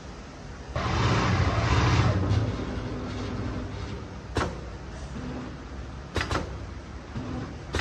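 Mattress-making machinery running: a machine starts suddenly with a hiss and a low hum that fades over about two seconds, then sharp mechanical clacks, some in quick pairs.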